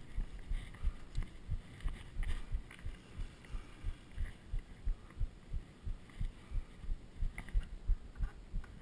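Mountain bike riding along a dirt trail: a rapid, uneven run of low thumps, about three or four a second, from the bike and rider jolting over the ground, with light clicks and rattles from the bike.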